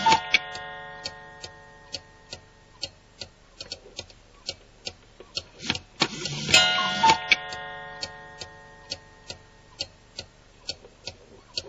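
Cartoon cuckoo-clock sound effects: a clock ticking steadily, a little over two ticks a second, with a ringing chord struck at the start and again about six and a half seconds in, each fading slowly over several seconds.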